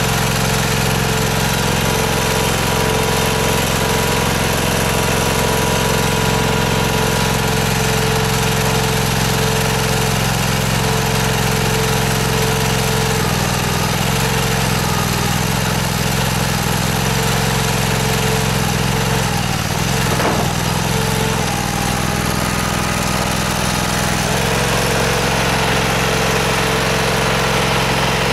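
A stone splitter's small engine running steadily to drive its hydraulic pump. The engine note changes and wavers for about ten seconds in the middle as the splitting cylinder takes load, with a single sharp crack in that stretch as the stone gives way.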